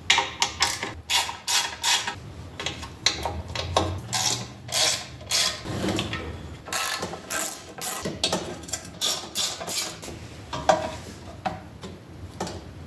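Hand ratchet wrench clicking in short, uneven runs as bolts are backed out to remove the small engine's shroud, with sharp metal clicks and knocks of tool and parts.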